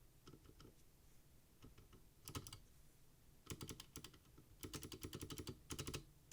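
SMK Gen 2 Alps-mount (Monterey) switches under Apple Extended Keyboard II keycaps, typed on: a few light keystrokes, then quick runs of typing at about two seconds, three and a half seconds and five seconds in.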